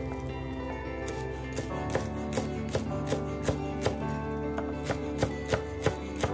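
Chinese cleaver slicing mustard green leaves on a wooden cutting board: a steady run of sharp knocks, about two to three a second, starting a second or so in, over background music.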